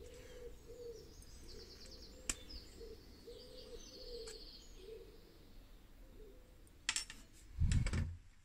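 Faint birdsong in the background, with two short high trills about three and four seconds in. Over it come a few small clicks from a cardboard template and its metal clip parts being handled, and a couple of louder knocks near the end.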